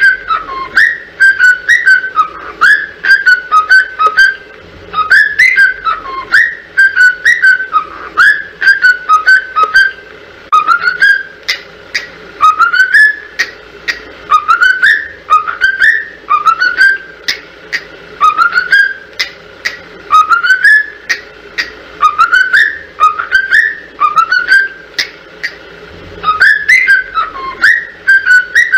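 A whistled tune repeated over and over as a training melody for cockatiels to imitate. Each phrase is a quick run of short whistle notes, many of them sliding upward, and it comes round again every couple of seconds.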